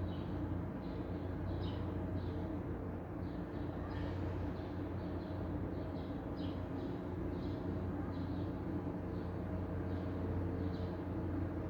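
Outdoor city ambience: a steady low hum with short, high bird chirps repeating throughout, about one or two a second.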